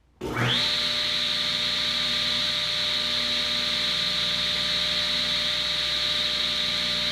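An electric power tool motor switched on, spinning up within half a second to a steady high-pitched whine and then running steadily.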